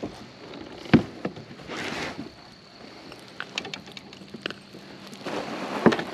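A freshly caught crappie being swung aboard and handled in a Nucanoe Frontier 12 fishing kayak: scattered clicks and rattles, with two sharp knocks about a second in and near the end as the fish and its lure hit the hull and gear.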